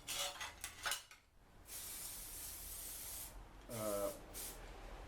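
Aerosol can of zinc-rich weld-through primer spraying onto a repair patch: a steady hiss lasting about a second and a half, with a shorter burst near the end. A few metallic clinks come before it.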